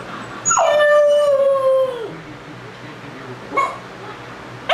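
Labrador puppy howling: one long howl about half a second in that drops in pitch, holds for about a second and a half, then falls away, followed by a short cry about three and a half seconds in and another at the end. The puppy is crying out in distress at being left alone.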